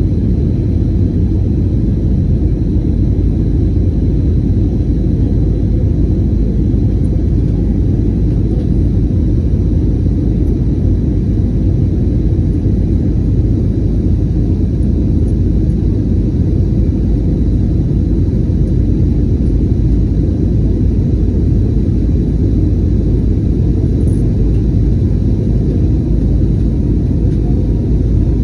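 Steady low rumble of a jet airliner's engines and rushing air, heard from inside the passenger cabin during the climb after takeoff.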